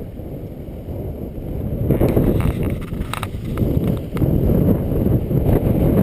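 Strong wind buffeting the microphone in gusts, louder from about two seconds in, with a few sharp clicks in the middle.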